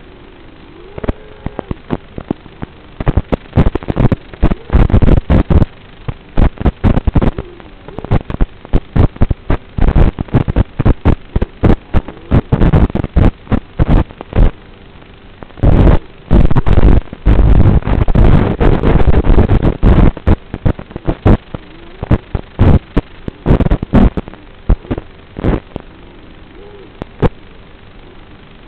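Onboard audio of an FPV racing quadcopter's analog video feed: a faint motor whine that bends a little in pitch, under a steady hiss, broken up by loud, irregular crackling and popping bursts that come in clusters.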